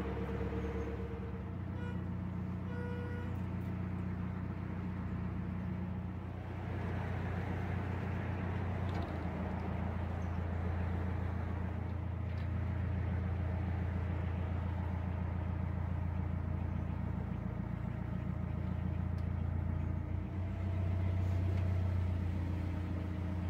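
Narrowboat's inboard engine running steadily at low cruising speed, a constant low hum whose note shifts slightly about a second and a half in and again around nine seconds in.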